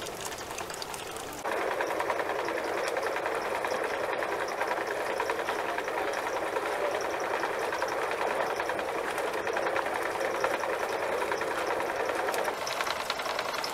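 Small engine running with a fast, even rattle, cutting in about a second and a half in and cutting out sharply near the end.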